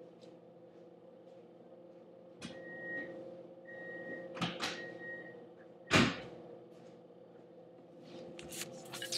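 Door-like knocks and thuds from elsewhere, one louder thud about six seconds in, over a steady electrical hum, with three short faint beeps a few seconds in.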